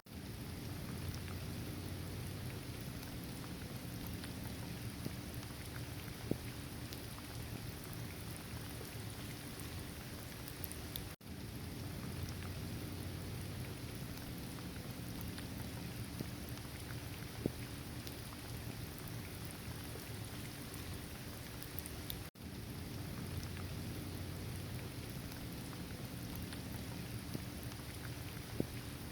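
Steady rainfall with scattered droplet ticks over a low rumble. It cuts out for an instant twice, about a third and two thirds of the way through.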